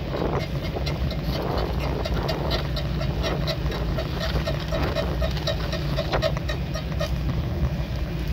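Wind rush on the microphone and tyre rumble from a bicycle being ridden along a cracked asphalt road, with many small clicks and rattles from the bike throughout.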